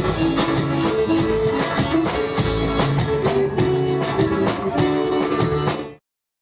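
Gaúcho vanera dance band playing an instrumental passage, with held notes over a steady beat. The music cuts off abruptly near the end.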